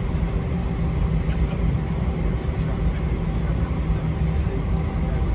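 Steady rumble of an Airbus A321's engines and airflow heard inside the passenger cabin, with a few faint steady tones above it and no change in level.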